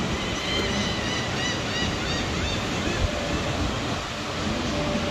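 Steady rush of surf breaking along the beach, with wind on the microphone. In the first half there is a quick run of about ten short, high chirps.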